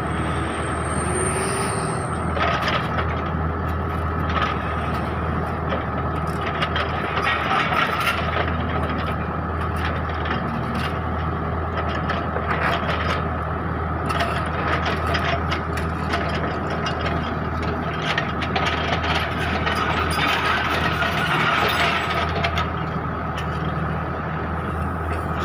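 Kubota mini excavator's diesel engine running steadily under load, with a constant high whine over the low engine hum, as its bucket works through crushed coral rock, giving scattered scrapes, clicks and crunches.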